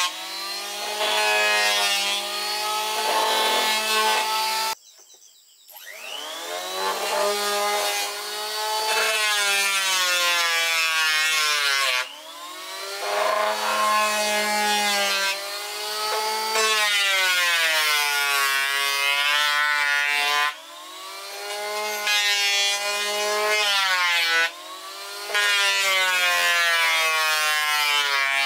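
Electric hand planer running and shaving a wooden board, its motor pitch sagging under load on each pass and climbing back as it frees up. It cuts out briefly about five seconds in, then spins back up.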